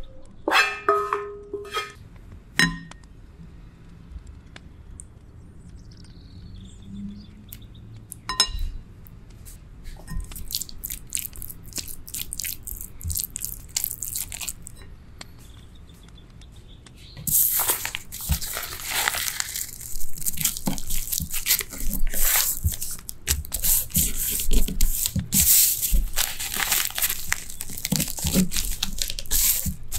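A wooden spoon stirs spicy tuna mixture in a glass bowl: soft scraping, with a few clinks near the start. A little over halfway through, a dry sheet of nori is folded and torn by hand, with loud, crisp crinkling and crackling.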